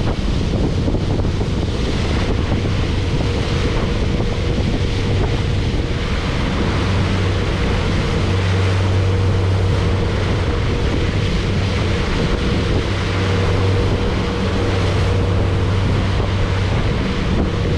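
Twin Suzuki outboard motors running at steady cruising speed with a constant low drone, over the rush of the wake and wind buffeting the microphone.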